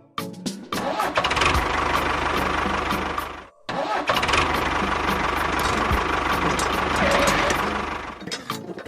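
Tractor engine starting after a few clicks, then running steadily. It cuts out abruptly about three and a half seconds in, starts again a moment later and fades near the end.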